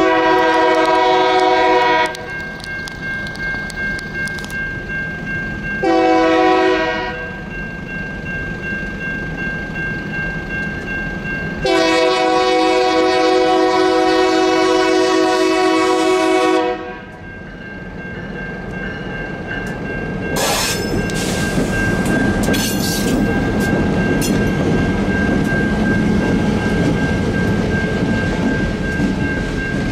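Union Pacific freight locomotive horn at a grade crossing, blowing a long blast, a short one and a final long one of about five seconds, over the steady ringing of the crossing's electronic bell, a Siemens E-Bell (Safetran Type 3 low tone). From about two-thirds of the way in, the locomotives and then the freight cars roll over the crossing, wheels clickety-clacking on the rail joints, with a few sharp clicks.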